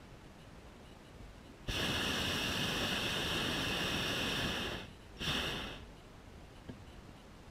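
Hot air balloon's propane burner firing: one blast of about three seconds, a short gap, then a brief second blast of under a second.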